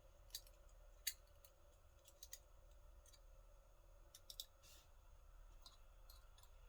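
Near silence broken by a few faint, scattered small clicks: parts of a pin-tumbler lock being handled as it is taken apart and its springs pulled out one by one.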